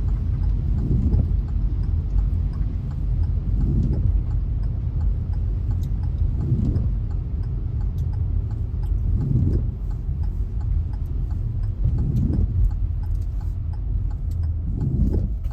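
Car moving in a heavy rainstorm, heard from inside: a steady low rumble from the car on the wet, flooded road, with a swell about every three seconds and scattered ticks of rain.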